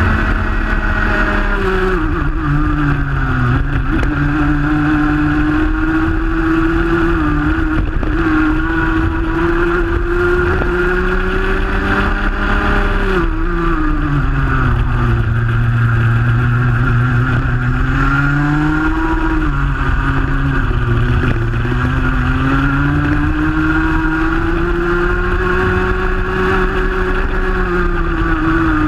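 Rotax Max Junior 125cc single-cylinder two-stroke kart engine at racing speed, heard onboard. Its note falls sharply as the kart brakes for corners about 2, 13 and 19 seconds in, then climbs steadily as it accelerates out.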